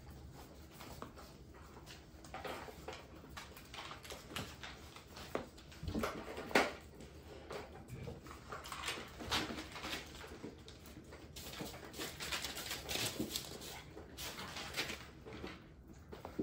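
A litter of bullmastiff puppies playing, giving short whimpering calls among irregular scuffling, with the loudest burst about six and a half seconds in.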